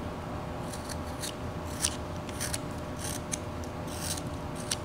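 Carving knife slicing chips off a hand-held wooden figure: a series of short, sharp cuts, roughly one or two a second.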